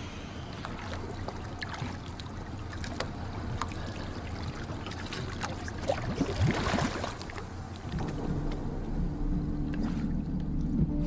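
Sea water splashing and lapping around a diver at the surface, with a louder rush of splashing about six seconds in as he goes under. A low steady hum joins about eight seconds in.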